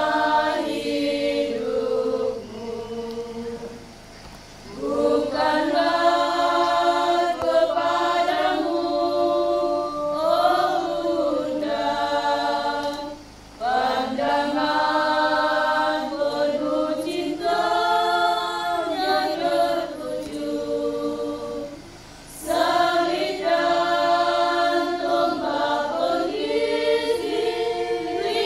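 A women's choir singing a hymn unaccompanied, in long phrases with short breaths between them three times.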